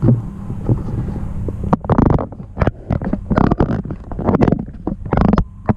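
Power wheelchair's drive motors humming steadily, with a run of irregular knocks and rattles from the chair-mounted camera being handled, starting a little under two seconds in.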